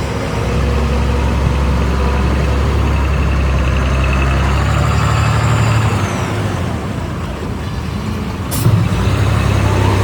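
Heavy vehicle's diesel engine running steadily with a deep rumble and a faint high whine that rises and falls. About eight and a half seconds in comes a short, sharp hiss like an air-brake release.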